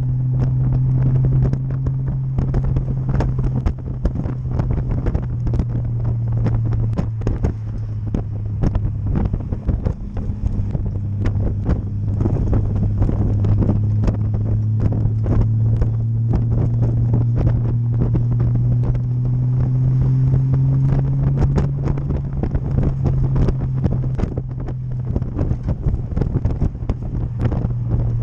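Vehicle engine running steadily at cruising speed, its low drone rising slightly in pitch and then easing off a few seconds before the end. Heavy wind buffeting on the microphone comes with it.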